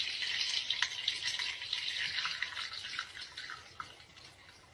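Liquid mixture poured into hot oil in a pan, frying with a steady sizzle and many small crackles that die away near the end.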